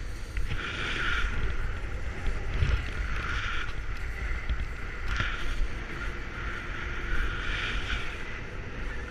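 Wind buffeting the microphone with a steady low rumble, and skis hissing and scraping across the snow in four separate passes, each lasting under a second to about a second, as the speedriding skis touch the slope between short hops under the wing.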